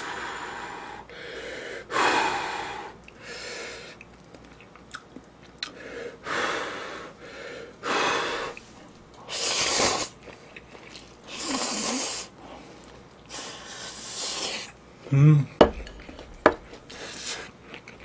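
A person blowing on and slurping hot instant ramen noodles in repeated bursts of about a second each. The loudest slurp comes around ten seconds in. Near the end there are short wet mouth clicks of chewing.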